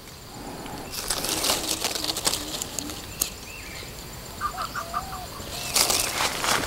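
Lychee leaves and branches rustling as they are handled, and footsteps crunching through dry fallen leaves near the end, with short bird chirps in the background.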